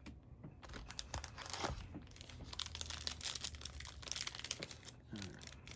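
Cellophane wrapper of a football card pack being torn open and crinkled by hand, a dense crackling that sets in about half a second in.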